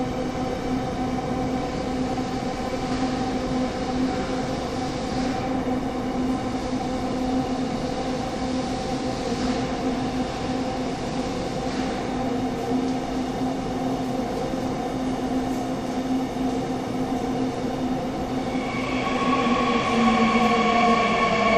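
Seoul Metro new 3000-series electric train rolling slowly into the station, with a steady hum of motor tones over rumbling running noise. About nineteen seconds in, its VVVF inverter whine grows louder and slides down in pitch as the train brakes to a stop.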